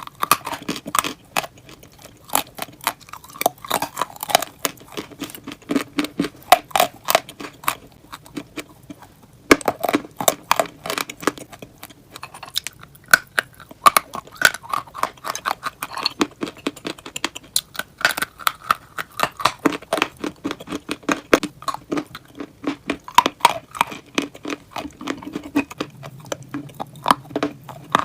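Close-miked biting and chewing of crunchy chalk and clay: a dense run of crisp crunches and clicks, with a brief lull about nine seconds in.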